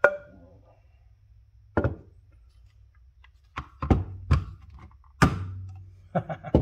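A series of knocks and clunks, about seven spread over a few seconds, as a hand impact driver and a metal carburetor body are set down and shifted on a wooden workbench.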